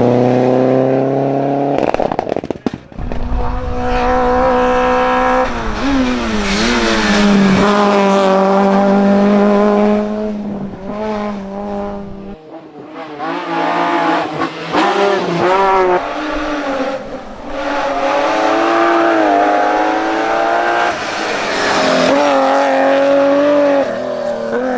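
Hillclimb race car engines revving hard, the pitch climbing and dropping again and again through gear changes and lifts off the throttle.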